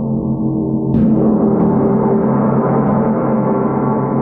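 A 40-inch bronze wind gong, already ringing, is struck once with a soft-headed mallet about a second in. Its ringing then swells and spreads into higher overtones, a sustained wash that keeps sounding.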